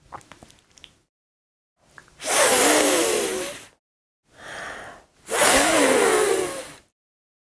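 A woman voicing the sound of the letter F as long hissing "fff" sounds: two loud ones of about a second and a half each, with a softer breathy one between.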